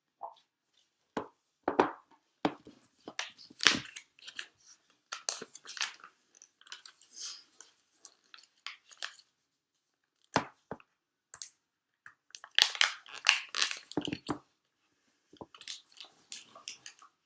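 Apple Watch packaging being handled and opened by hand: scattered sharp clicks and knocks with rustling and scraping of plastic and cardboard. It comes in two busy spells, a few seconds in and again about two-thirds of the way through, with quieter gaps between.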